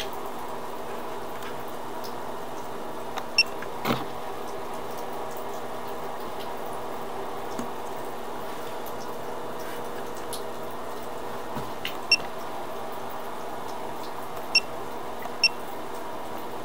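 A steady hum with a handful of short, sharp ticks scattered through it, several of them close together near the middle and the last two near the end.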